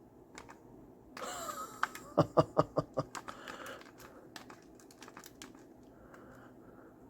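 Keys of a vintage 1975 Qualitron 1407 pocket calculator being pressed: scattered clicks, with a quick run of about six loud clicks around two to three seconds in, just after a short breathy exclamation.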